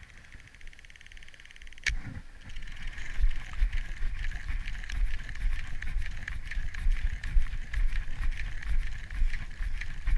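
Baitcasting reel on a jet ski: fine rapid ticking as the handle turns, then a sharp click about two seconds in, after which a steadier whir with scattered ticks runs as line pays out. Under it, wind and small waves make an uneven low rumble against the hull.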